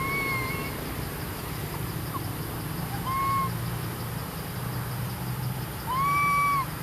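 An animal giving three clear whistled calls about three seconds apart. Each is a short note that rises and then holds level, and the last is the longest and loudest. A steady low rumble runs underneath.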